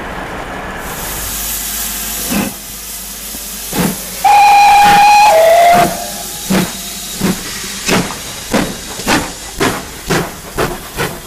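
GWR Hall class steam locomotive No. 5972 Olton Hall hissing steam, then sounding its whistle once for about a second and a half, the note stepping down just before it stops. It then pulls away, its exhaust beats coming steadily faster as it gathers speed.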